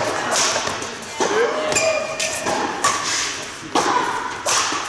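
Badminton doubles rally in a sports hall: rackets striking the shuttlecock in quick exchanges, with footfalls and shoe squeaks on the court floor, echoing.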